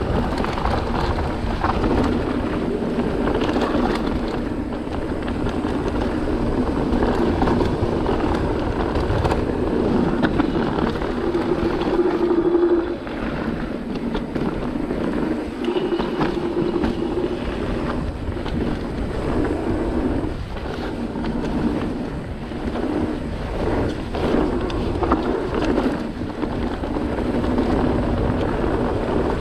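Wind buffeting the microphone and the rolling noise of a Cube Stereo 150 TM full-suspension mountain bike descending a dirt trail. Knocks and rattles from the bike over bumps come more often in the second half, and two brief humming tones sound midway.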